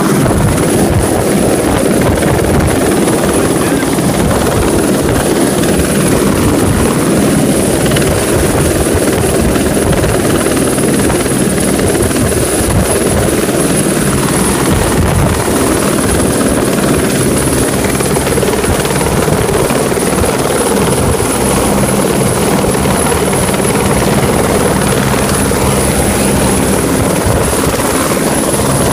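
Helicopter running close by, its rotor chopping in a rapid even beat, with a steady high whine above it.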